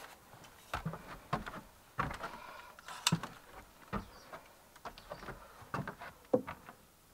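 Irregular knocks, clicks and shuffles of a spirit level being handled and set against a wooden post, with footsteps on a plank floor. The loudest knock comes near the end.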